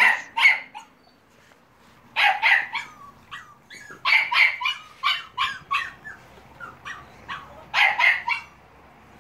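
Staffordshire terrier puppies yapping and barking in high-pitched play, in four short flurries with quieter gaps between.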